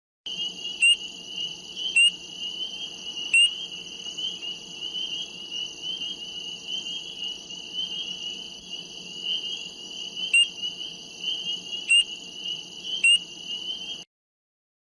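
Chorus of frogs and insects: a continuous high shrill trilling, with six short sharp calls standing out loudest, three in the first few seconds and three more near the end, before the recording cuts off abruptly.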